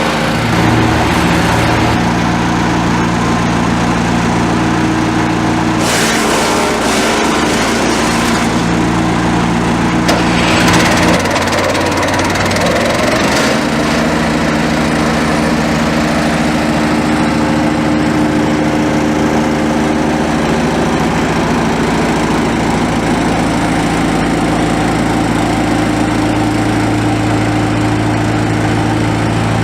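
Polexim GTS-1500E wood chipper running, its engine note shifting and dipping several times as it works. Two short rough bursts, about 6 and 10 seconds in, are typical of branches being chipped by the drum knives.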